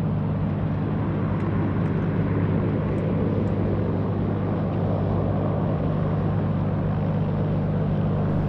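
Cessna 180J Skywagon floatplane's six-cylinder Continental O-470 engine and propeller running at taxi power as it moves across the water: a steady, unchanging drone.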